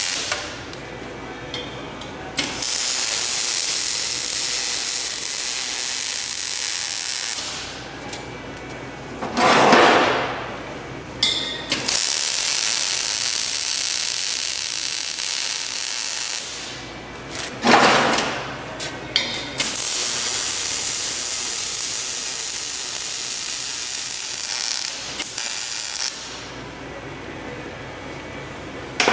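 Arc welding on a steel belt-grinder frame: three long steady runs of welding hiss, of about five, four and six seconds, with short louder whooshes in the pauses between them.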